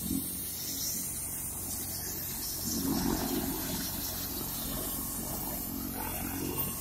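Agusta A109 twin-turbine helicopter running on the ground: a steady rushing noise from its turbines and rotor, with a high hiss on top and no change in level.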